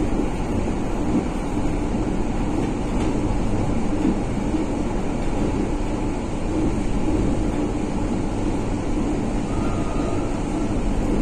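Steady running noise inside the passenger car of a 1963 PaFaWag EN57 electric multiple unit: an even low rumble from the wheels and running gear under the floor. A faint brief tone is heard near the end.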